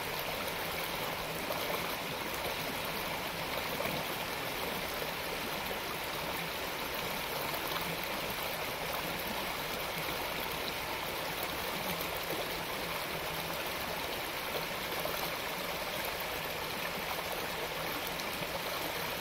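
Fast, high creek water rushing over riffles: a steady, even rush.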